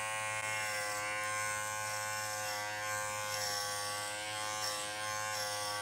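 Kenchii Flash adjustable-blade dog clipper running with a steady electric buzz while skimming over a Goldendoodle's coat.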